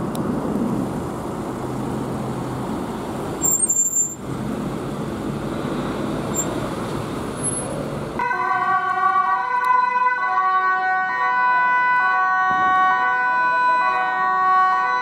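A police van drives past with engine and tyre noise, with a brief loud thump about three and a half seconds in. About eight seconds in, an emergency vehicle's two-tone siren starts and alternates between two pitches about once a second.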